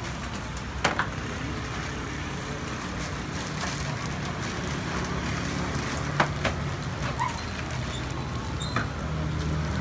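Street-food stall ambience: a steady low hum under a wash of background noise, with a few sharp clicks and knocks, a pair about a second in, another pair around six seconds in and one near the end.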